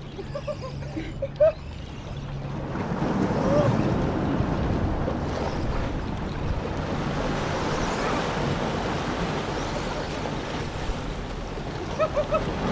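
Ocean surf and wind buffeting the microphone: a steady rushing that swells about three seconds in and carries on. A low steady hum is faintly under it at the start.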